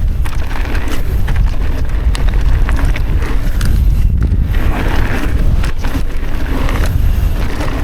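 Wind rushing over the microphone of a mountain bike at speed, a steady low rumble, with knobby tyres rolling over the dirt trail and sharp clicks and rattles from the bike.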